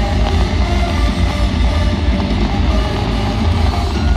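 Loud rock music with electric guitar and drums, the soundtrack played over the sound system of a fireworks display.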